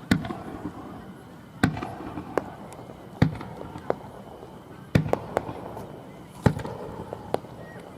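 Fireworks bursting overhead: five loud booms about a second and a half apart, each with a short rumbling tail, and smaller cracks between them.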